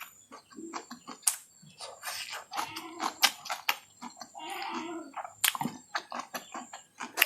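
Close-miked mouth sounds of eating chow mein: irregular wet chewing and lip smacking with many sharp clicks, and one longer wet sound about four and a half seconds in.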